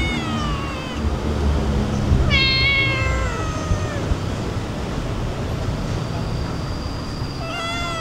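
Stray cats meowing: a falling meow at the start, a longer, louder falling meow about two seconds in, and another short meow near the end.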